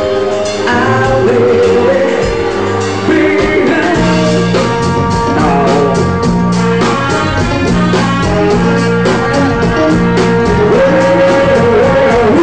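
Live band playing a rock song: a singer over a steady drum beat and keyboard.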